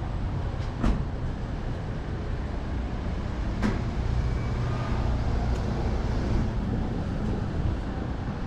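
Steady low rumble of city street traffic, with two sharp knocks about one and three and a half seconds in.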